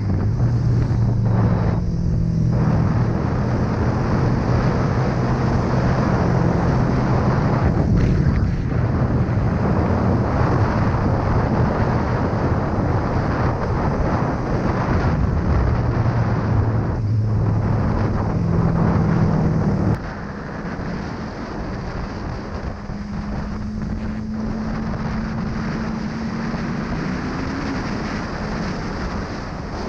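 Motorcycle engine, a Honda CB1000R's inline-four, running at a steady cruise under heavy wind noise on the microphone. About two-thirds of the way through the sound drops suddenly to a quieter, steadier engine note that rises slightly in pitch near the end.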